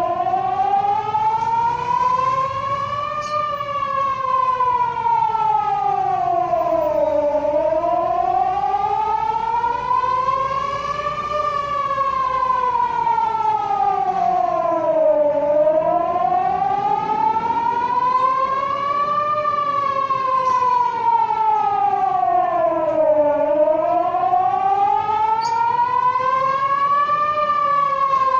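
Emergency public warning siren sounding a wail during a test of the warning system: one steady tone sliding up for about four seconds and back down for about four seconds, over and over.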